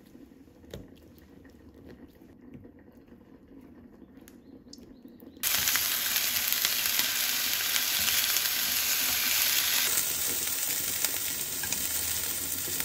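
Faint soft pricking sounds of a fork going into raw chicken drumettes, then, starting suddenly about five seconds in, chicken wing drumettes sizzling loudly as they brown in a hot frying pan.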